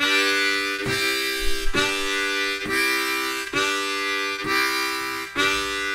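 Diatonic harmonica in C playing chords on holes 1, 2 and 3, changing between a draw chord and a blow chord each beat, about one chord a second. The blow chords are played with loosened lips, so they come out relaxed rather than squashed.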